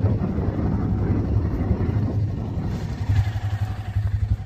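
Off-road utility vehicle's engine idling steadily, left running so it won't stall with a weak battery.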